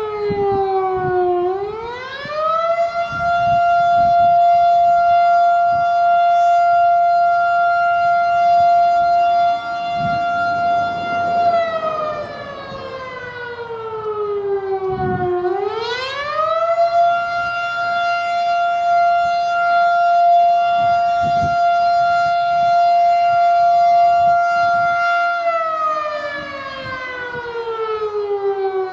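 Federal Signal Model 7 storm siren sounding the attack signal. Its loud tone drops away, winds back up to a steady high pitch and holds for about nine seconds, then drops and winds up again, falling once more near the end.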